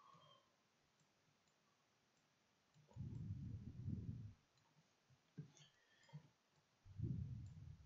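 Near silence with faint computer mouse clicks, and two short stretches of low, muffled noise: one about three seconds in, another near the end.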